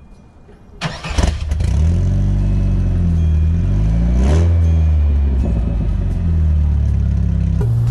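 Chevrolet S10 pickup's engine starting about a second in, heard from behind at the exhaust, then idling steadily. There is a brief throttle blip about four seconds in, the pitch rising and falling back.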